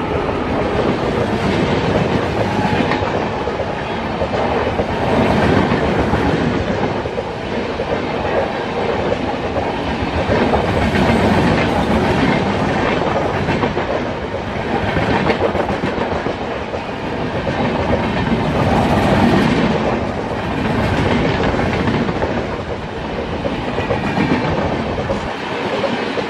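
Passenger coaches of an express train passing close by at high speed. The wheels clatter over the rail joints in a quick, uneven rhythm over a loud, steady rolling rumble that swells and dips as the coaches go by.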